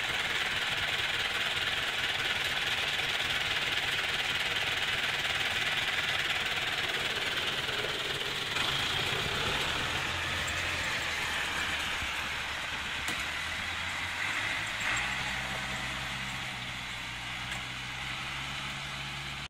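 International 784 tractor's diesel engine running, heard from inside the cab with a steady hiss over it. From about halfway through, the low engine hum comes through more plainly.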